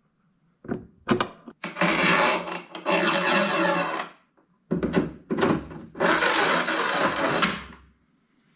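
Metal axle rod scraping and rubbing as it is pushed through the plastic body of a lawn mower, in two long stretches, after a few sharp knocks.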